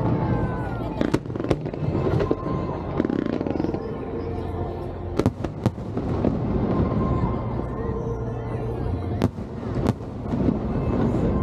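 Aerial firework shells bursting overhead: a string of sharp bangs at irregular spacing over a continuous rumble of the display.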